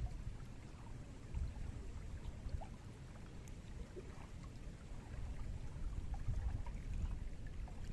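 River water flowing, a low, steady rushing with small trickling sounds over it, getting a little louder about five seconds in.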